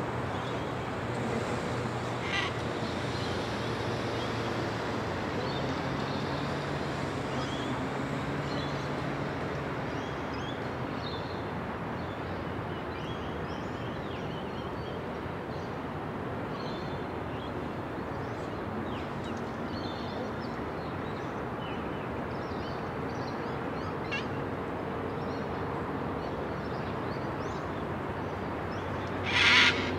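Sulphur-crested cockatoo giving one loud, harsh screech near the end, over a steady background hiss with faint, scattered chirps of small birds.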